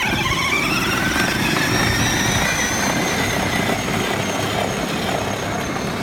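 Power Wheels Jeep's electric drive motors, on the stock 12-volt battery, whining as the ride-on pulls away, the whine rising in pitch over the first second or two and then holding steady, over a steady rumble of the wheels on the ground.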